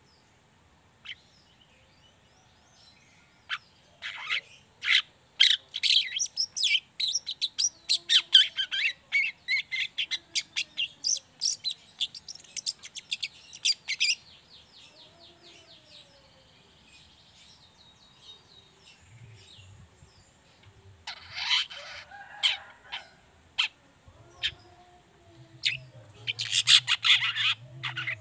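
Juvenile long-tailed shrike singing its scratchy twittering song: a long run of sharp, quick chirps, about three a second, that ends in a fast trill. After a quieter pause come two dense bursts of chattering.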